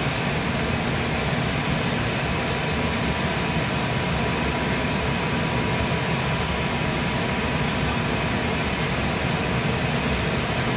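Steady hum and hiss of fans and machinery running in a powered-up jet cockpit, unchanging throughout, with a faint high steady whine through the middle.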